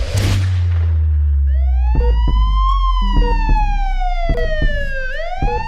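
A rising whoosh ends in a sharp hit and a deep boom. Then a wailing siren glides up, slowly falls and rises again, with sharp percussive hits on top, as in an edited sound-effect stinger.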